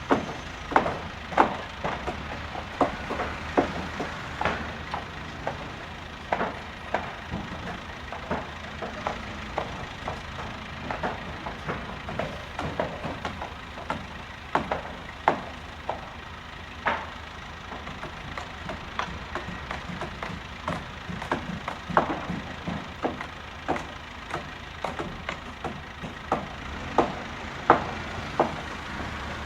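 Building-site noise: irregular sharp knocks and bangs, one or two a second, over a steady engine rumble.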